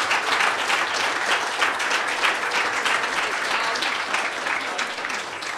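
Audience applauding, a dense steady clatter of many hands clapping that begins to thin out near the end.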